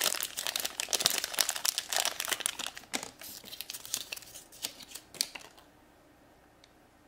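A foil Shopkins blind bag crinkling as it is torn open, then the thin wrapper around the figure crinkling as it is peeled off; the dense crackling dies away after about five and a half seconds.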